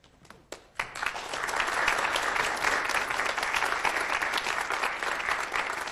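Applause from many people clapping: a few scattered claps at first, then full, even applause from about a second in, thinning slightly near the end.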